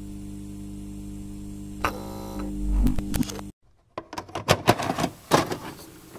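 Title sound design: a steady electric hum with a few held tones swells briefly and cuts off suddenly about three and a half seconds in. After a short silence comes a run of sharp, glitchy clicks and crackles.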